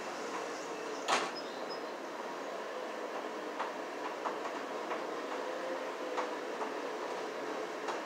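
Small clicks and taps of hand work at a plastic electrical switch box, the sharpest about a second in and fainter ones every second or so after, over a steady background hum.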